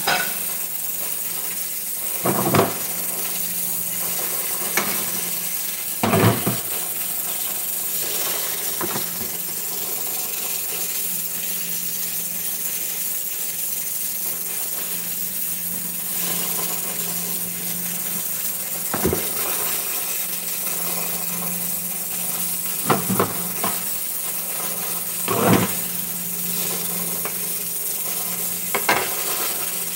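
Steady hum and hiss of a kitchen, with about eight scattered knocks and clinks of cookware at the gas stove.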